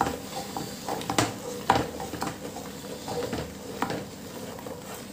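Wooden spatula stirring sliced ridge gourd into masala in an aluminium pressure cooker: irregular knocks and scrapes against the pot, the loudest a little under two seconds in.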